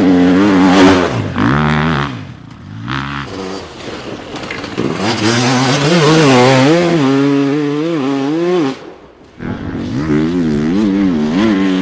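Enduro dirt bike engines revving hard as riders race past one after another, their pitch rising and falling through throttle changes and gear shifts. The sound drops away sharply about nine seconds in before another bike comes in loud.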